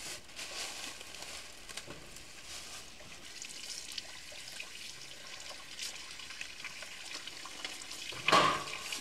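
Tap water running into a stainless steel sink and splashing over whole zander as they are rinsed by hand. A short, louder knock comes near the end.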